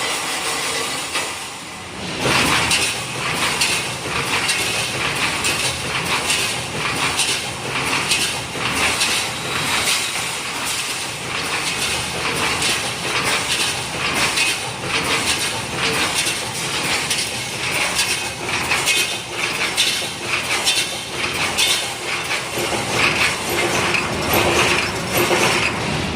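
Full automatic wire mesh welding machine running, a busy rhythmic clatter of repeated metal strokes as it welds and feeds wire, louder from about two seconds in.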